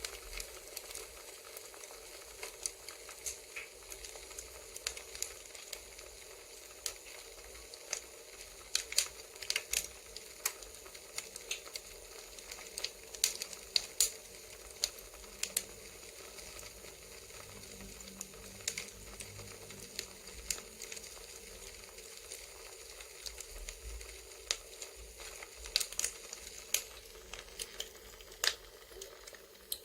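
Crackling wood fire: a steady soft hiss with irregular sharp pops and crackles from the burning wood, several a second in some stretches and sparse in others.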